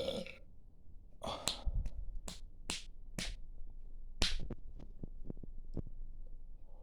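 The tail of a loud burp, then about seven sharp smacking clicks spread over about three seconds, followed by a few fainter ticks.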